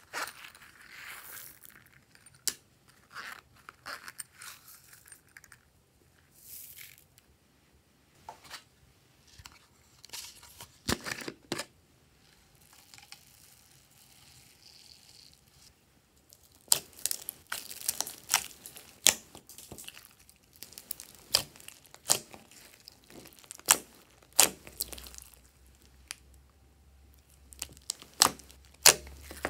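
Hand-mixed glossy slime squished and kneaded, with many sharp pops and crackles through the second half. Before that, fainter scattered clicks and crackles from plastic toys being handled, and a soft hiss of foam beads being poured in around the middle.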